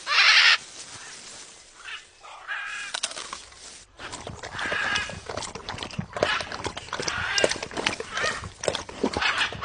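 Parrot squawking: one loud harsh squawk right at the start, then a run of harsh calls mixed with sharp clicks.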